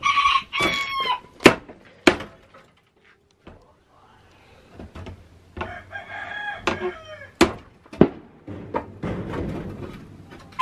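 Roosters crowing, once at the start and again about halfway through, with several sharp hammer blows on wood in between; the hammer blows are the loudest sounds.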